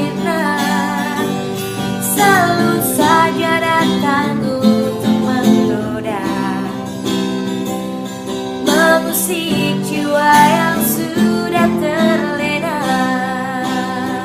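Music: acoustic guitar strumming under a woman's sung melody.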